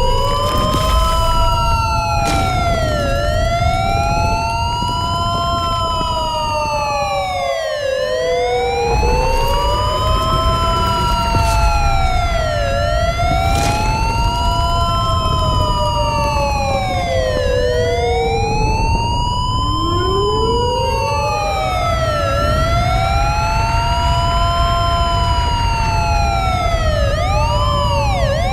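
Several emergency sirens wailing at once, each rising and falling in pitch every two to three seconds and overlapping out of step with one another, over a steady low rumble.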